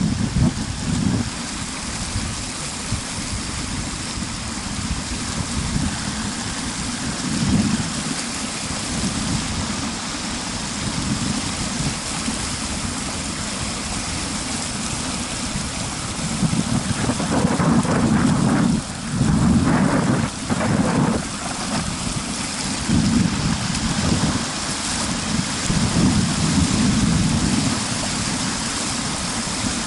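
Wind buffeting the microphone in uneven gusts over a steady hiss, the gusts strongest about two-thirds of the way through.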